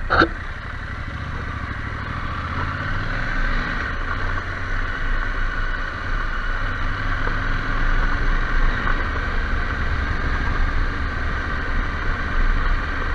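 KTM 790 Adventure R's parallel-twin engine pulling away and running along a gravel track, its pitch rising over the first few seconds as it accelerates, with tyre noise from the gravel.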